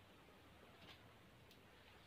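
Near silence: faint background hiss with two faint ticks, one about a second in and one shortly after.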